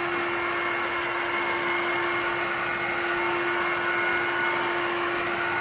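Shark HydroVac MessMaster WD161 wet-dry vacuum mop running steadily while picking up a wet mess from the floor: a constant motor hum and whine over rushing air.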